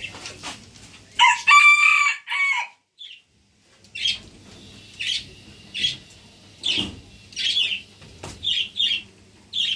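A rooster crows once, loud and with a stack of harmonics, about a second in. After a short silence comes a run of short, high calls, one every half second to a second.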